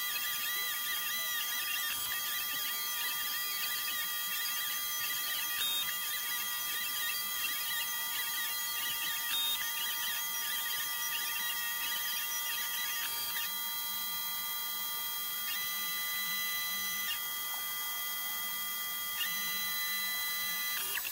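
Snapmaker's stepper motors whining as the blade-holder toolhead traces curved puzzle cuts through foam board, the pitch wavering with each curve. About two-thirds of the way through, the whine settles onto a different, steadier set of tones.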